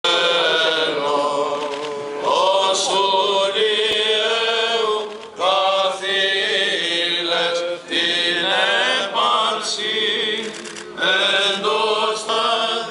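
Male voices of Greek Orthodox clergy chanting Byzantine chant from the blessing-of-waters service, sung into microphones. Long melismatic phrases, with short breaks between them.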